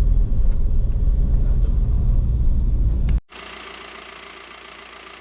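Car driving: a steady deep road-and-engine rumble heard inside the cabin. About three seconds in it cuts off abruptly to a much quieter, even rushing hiss.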